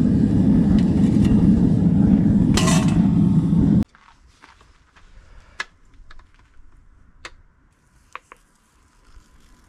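Propane-fired metal-melting furnace burner running with a loud, steady low rush, one sharp clink about two and a half seconds in. Nearly four seconds in it stops abruptly, leaving quiet with a few faint metallic clinks as molten metal is poured from a crucible into a sand mold.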